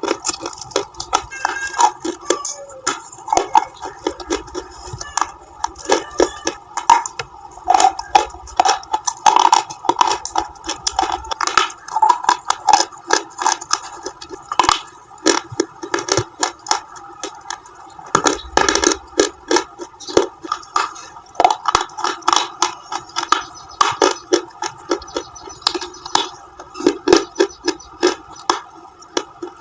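Close-miked crunching of colored KitKat-style bars, bitten again and again: crisp, rapid cracks and crackles, with heavier bites around the middle and about two-thirds of the way in.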